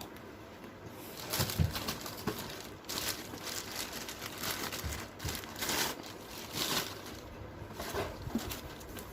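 Plastic parts and packaging of a steam inhaler being handled, rustling and crinkling in irregular bursts with a few light knocks.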